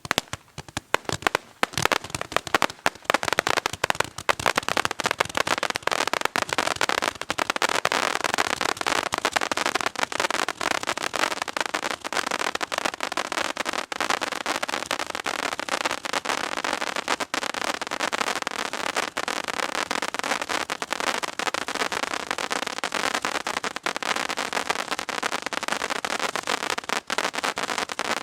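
Gatling gun fireworks firing a rapid string of sharp cracks and pops. The first couple of seconds are scattered separate bangs, which then thicken into a dense, continuous crackling volley.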